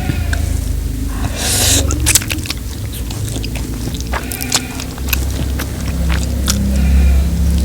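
Close-miked chewing and wet mouth clicks of someone eating instant carbonara spaghetti, with a brief noisy burst about one and a half seconds in.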